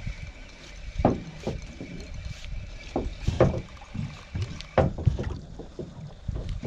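Water slapping against a small boat's hull as it rocks at sea: a low steady wash with a handful of irregular knocks a second or more apart.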